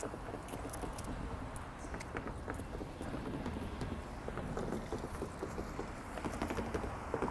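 City street traffic with a steady low rumble, overlaid by many scattered light clicks and taps.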